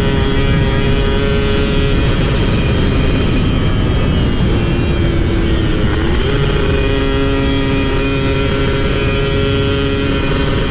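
Two-stroke motorcycle engine running under way. Its note holds steady, breaks up about two seconds in, sags lower through the middle, then climbs back quickly about six seconds in and holds.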